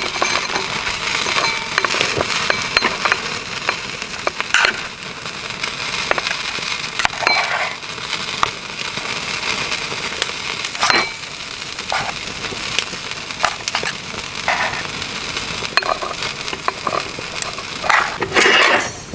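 Camp cooking over a mini fire pit: a steady sizzling hiss with scattered crackles and clicks, and a few louder sharp ticks.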